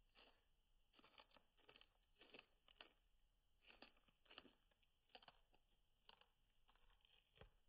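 A long-haired guinea pig crunching and tearing at a fresh lettuce leaf, with faint crisp bites in an uneven rhythm of roughly two a second.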